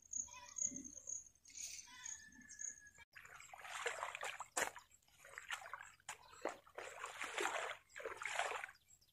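A hoe chopping and scraping wet mud off the edge of a paddy-field bund, with splashes of muddy water, in repeated strokes about one a second, starting about three seconds in.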